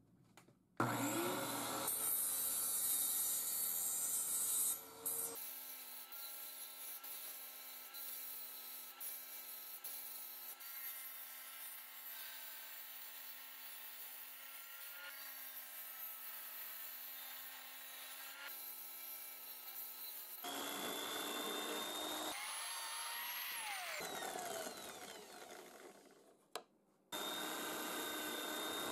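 Power woodworking tools running in turn: a table saw with its blade under a wooden table top, cutting plywood and pine boards through several passes. Near the end, a benchtop drill press bores into a pine board.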